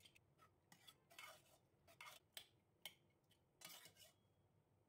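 Faint clinks and scrapes of a steel ladle against the steel pressure cooker pot as it stirs the cooked toor dal, at irregular intervals, with two longer scrapes.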